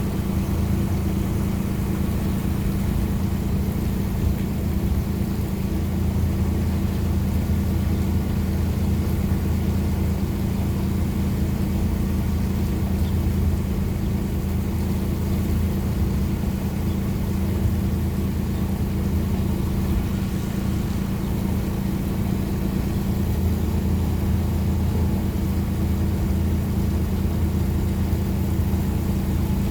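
A large engine running steadily at a constant speed, a low even hum that does not change.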